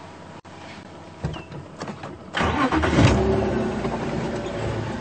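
Safari game-drive vehicle's engine starting up a little over two seconds in, after a few knocks, then running steadily.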